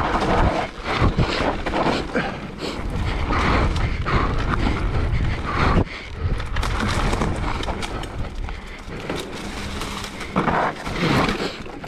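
Electric mountain bike riding fast down a dirt trail: tyres rolling over dirt and leaves, and the bike rattling and knocking over bumps, with a steady low rush of wind on the microphone.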